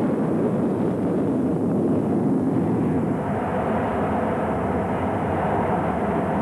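RAF Phantom jet fighters' engines, a loud steady roar whose higher hiss builds up again about three seconds in.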